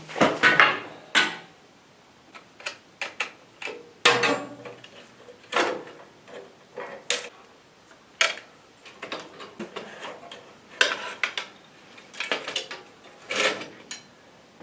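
Irregular metallic clinks and clatters of hand tools and small metal parts being handled, a dozen or so sharp knocks with short pauses between.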